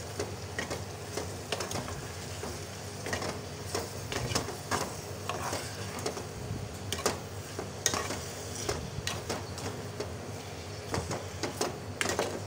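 A spatula stirring and scraping sliced capsicum, tomato and spices around a metal pan, in irregular scrapes and knocks, over a low sizzle of frying.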